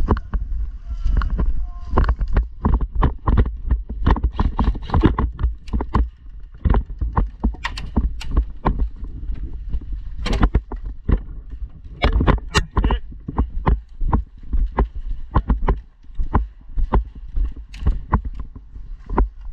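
Footsteps of someone walking at a brisk pace over outdoor ground, about two to three steps a second, with gear knocking and the heavy rumble of handling on a worn camera. A few sharper cracks stand out at moments along the way.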